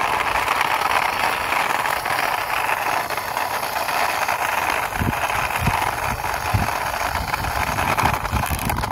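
Plastic wheels of a toy CNG auto rickshaw rolling along a rough concrete wall as it is pushed by hand, making a steady scraping rolling noise, with a few low thumps about halfway through.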